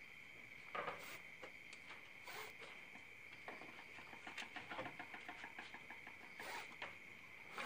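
Faint scattered clicks and scratches from an Asian palm civet moving about in its wire cage, with a rapid run of light ticks in the middle, over a steady high-pitched tone.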